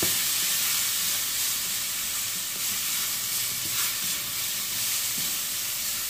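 Straw mushrooms sizzling in oil in a wok as they stir-fry, a steady hiss with a few light knocks from the spatula against the pan.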